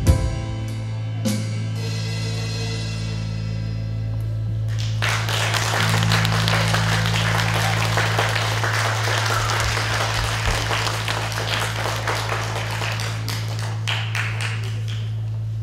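A band's last chord ringing out and fading over the first few seconds, then an audience applauding for about ten seconds. A steady low hum runs underneath.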